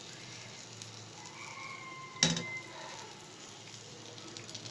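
Breaded chicken pieces shallow-frying in oil in a nonstick pan: a steady sizzle with fine crackles. A single sharp knock about two seconds in is the loudest sound.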